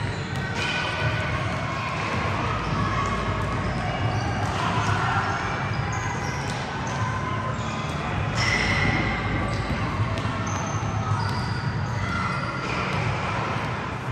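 Basketball bouncing amid a steady din of court activity, with short high squeaks scattered throughout.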